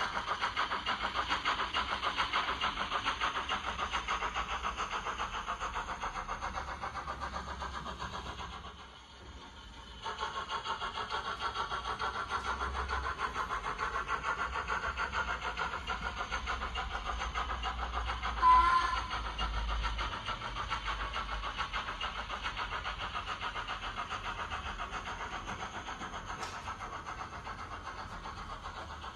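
Model locomotive sound decoder playing the sound of an LMS Jubilee class steam locomotive running: fast, even exhaust chuffs from its small onboard speaker. The chuffing drops away briefly about nine seconds in, then picks up again. A short whistle sounds about eighteen seconds in.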